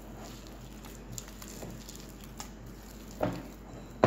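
Soft, sticky banana dough for Mangalore buns squished and kneaded by hand in a glass bowl: quiet wet squelching and patting, with a louder thump a little after three seconds in.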